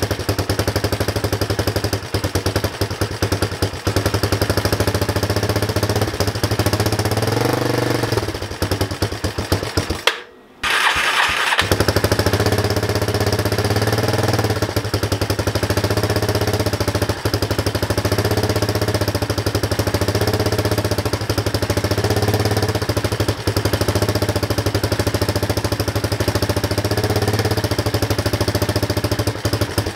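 Electric starter cranking a freshly rebuilt Yamaha Warrior 350 single-cylinder four-stroke quad engine over with a fast, even pulsing, in two long cranks. The first runs about ten seconds, then stops for about a second before cranking resumes.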